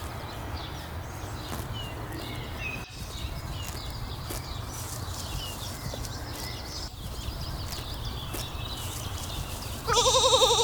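Outdoor ambience of small birds chirping and faint clicks, then near the end a sheep gives one loud bleat with a wavering, quavering pitch.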